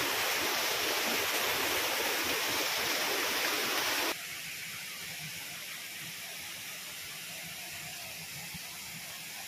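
Steady rush of running water from a mountain stream or runoff channel. It drops abruptly quieter about four seconds in and runs on evenly after that.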